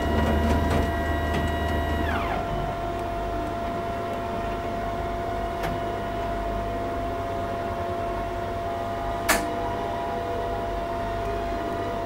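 Veterinary X-ray image-plate reader running as it scans a cassette: a steady machine whine, with a higher tone and low hum that wind down and stop about two seconds in, and a single sharp click about nine seconds in.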